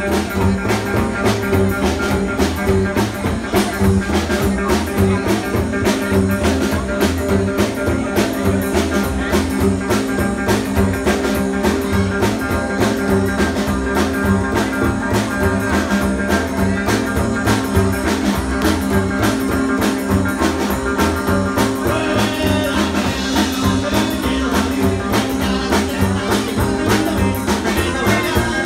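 Live rockabilly band playing: guitar, upright double bass and drum kit, with a steady fast beat.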